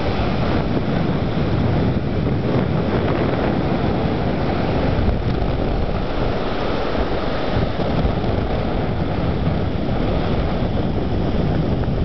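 Wind buffeting the microphone, a steady low rumble over the wash of surf breaking on the beach.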